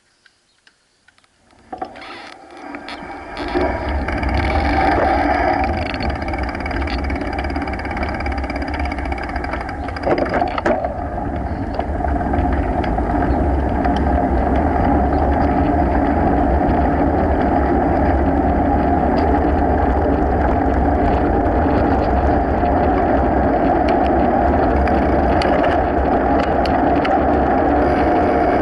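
Wind buffeting the camera's microphone and mountain-bike tyres rolling on asphalt as the bike gets under way. The rumble rises over the first few seconds, then runs steady with a few scattered clicks and knocks.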